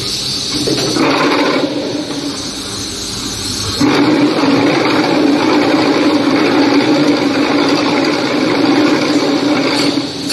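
QTJ4-25D automatic concrete block making machine running. About four seconds in, a loud, steady buzz starts abruptly and holds.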